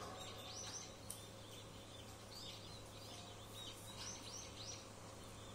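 Birds chirping faintly: short quick high calls in small clusters, a group every second or so, over a low steady hum.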